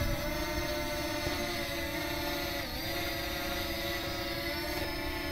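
FIMI X8 Mini quadcopter's motors and propellers whining steadily during its automatic take-off climb to a hover a few metres up. The pitch dips briefly about halfway through.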